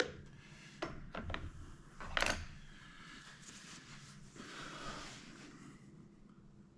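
Metal clicks and knocks of a rifle being handled and taken apart, the loudest a short sliding clack about two seconds in, followed by a few seconds of soft scraping.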